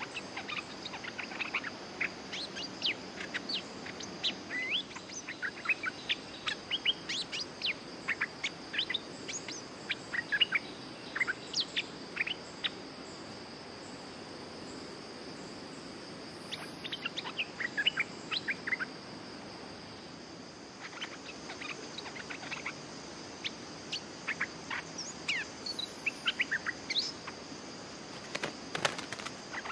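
Bulbuls calling: bursts of quick, short, bright chirps that sweep in pitch, with pauses of a few seconds between bursts, over a steady high-pitched insect drone.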